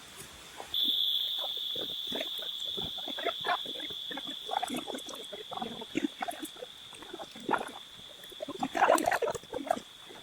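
Animal calls, with a steady high-pitched tone that starts about a second in and runs on, and many short irregular calls that grow busier near the end.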